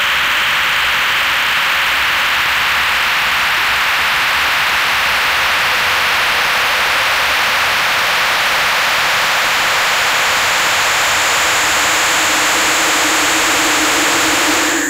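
Harsh-noise music: a loud, steady wall of hissing electronic noise. A high, thin steady tone joins it about ten seconds in, and a low drone a second later. The texture breaks off abruptly at the very end.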